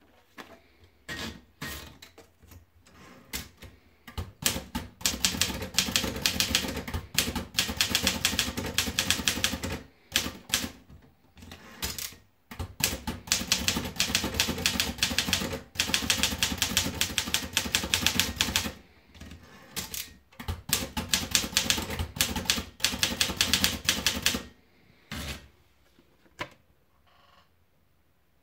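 Torpedo Model 18 manual typewriter being typed on: rapid key strikes in runs of several seconds, broken by short pauses and a few single strokes, then thinning out near the end.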